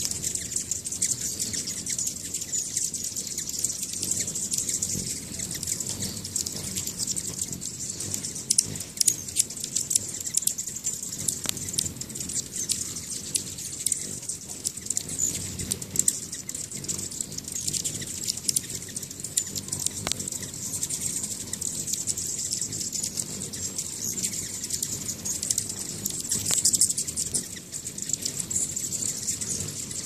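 A crowd of hummingbirds at feeders: dense, high-pitched chipping and twittering with many short ticks, over the low whir of their wings.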